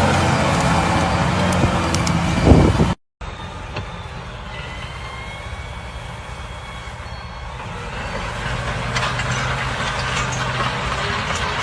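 Heavy farm machinery engines running. The sound cuts off abruptly about three seconds in and resumes as a quieter engine with faint high tones, which grows louder from about eight seconds in.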